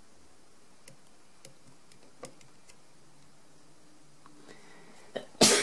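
Handling noise from a hand at a plastic lamp base: a few faint ticks and taps, then a sharp knock about five seconds in, followed at once by a louder, short knock just before the end.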